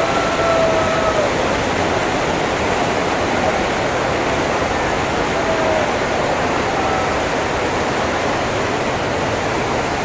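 Waterfalls and white-water rapids rushing: a steady, loud roar of falling and churning water.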